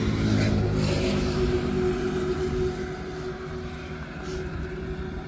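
A steady engine hum with a constant pitch, louder for the first couple of seconds and then easing off.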